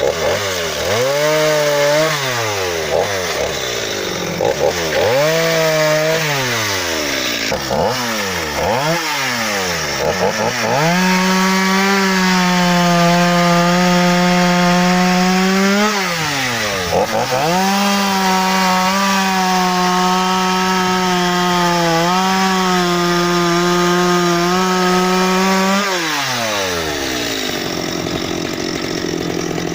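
Stihl 230 C 42.6 cc two-stroke chainsaw engine, blipped up from idle three times, then held at high revs for about five seconds, dropping briefly, held high again for about eight seconds, and falling back to idle near the end.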